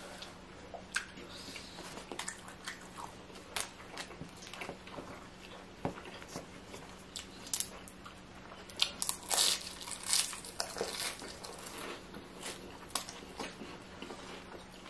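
A person chewing and biting barbecued chicken close to the microphone: irregular short clicks and crunches, with a denser, louder run of them about nine to ten and a half seconds in.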